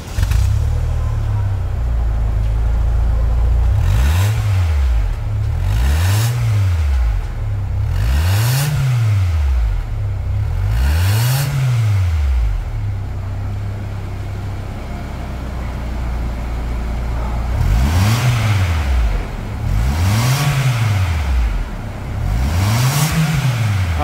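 Exhaust of a Toyota Corolla's 1.8 four-cylinder petrol engine, heard close at the tailpipe. It idles, then is blipped up and back down four times, idles again, then is blipped three more times. The engine is burning power steering fluid that is being drawn into its intake manifold.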